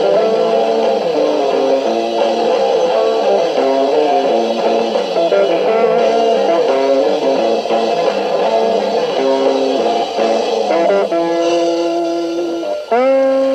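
Electric guitar playing a lead line of quick notes. About eleven seconds in it holds a note, and near the end it bends up into a long sustained note.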